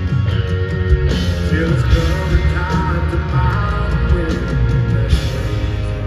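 Live country band, with electric guitars, bass and drums, playing behind a man singing lead into a microphone, heard from among the arena audience.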